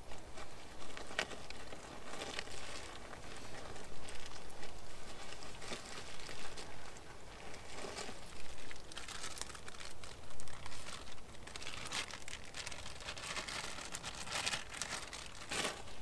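Plastic packaging crinkling and rustling in irregular bursts, with a few sharp clicks, the densest in the last few seconds.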